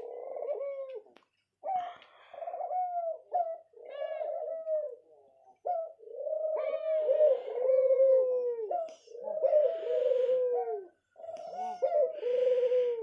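A pet dove cooing over and over: a string of low, rolling coos with short pauses between phrases, louder in the second half.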